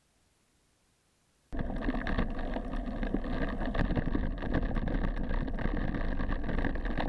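Near silence, then about one and a half seconds in a sudden cut to a loud, steady small-motor whine mixed with wind rushing over the microphone as it moves fast over open ground.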